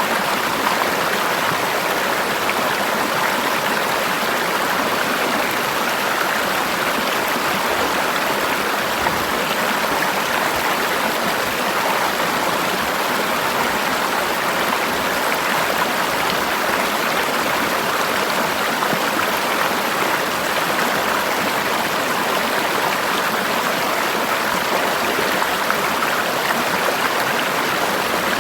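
Forest river flowing over rocks: a steady rushing and splashing of water that holds an even level throughout.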